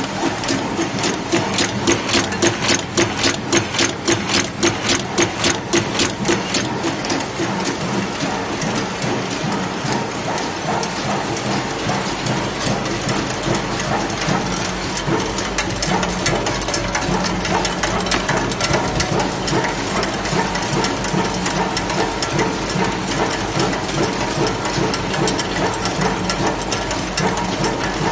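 Screw-making machines running: a fast, even clacking of the forming machinery through the first part, then a steady mechanical clatter over a low hum.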